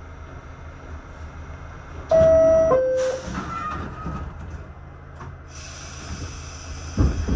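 Two-note descending door chime of a 1989 Kawasaki R68A subway car about two seconds in, the signal that the doors are closing. A hiss follows, then a loud low thump near the end, over the car's steady background rumble.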